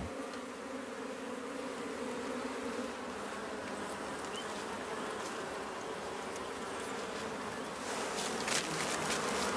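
A swarm of Africanized honeybees buzzing in a steady drone, growing a little louder near the end.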